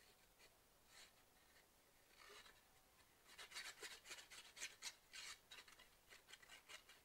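The plastic nozzle of a squeeze bottle of art glitter glue scratching and rubbing across paper as glue is spread on a page. It is quiet at first, then a quick run of short, scratchy strokes starts about three seconds in.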